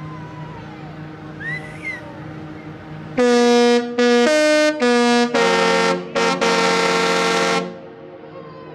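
Disney Wish cruise ship's musical horn playing a short tune of about seven loud notes, the last one held longest, over a low steady hum.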